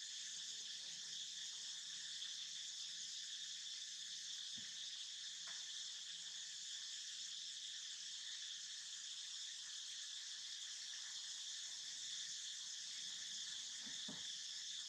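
Steady high-pitched chorus of insects chirring without a break, with a few faint clicks.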